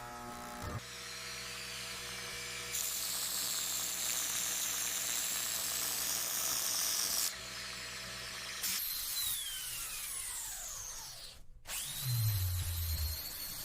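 Dental drill (high-speed handpiece) running in several cut-together clips: a high whine over hiss, a whine that falls steadily in pitch as the drill spins down about nine to eleven seconds in, then a quick rise to a steady high whine as it spins up again near the end.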